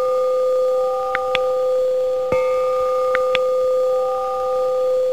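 A sustained ringing bell tone, struck again a little over two seconds in. Two short high pings come about a second in, and two more about three seconds in.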